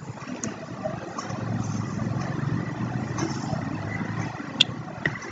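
Low, steady background rumble that swells a little in the middle, with a sharp click about four and a half seconds in.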